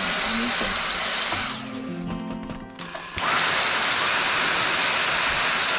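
Handheld electric vacuum cleaner running with a steady whine. It is switched off after about a second and a half, then switched on again about three seconds in and spins back up to speed.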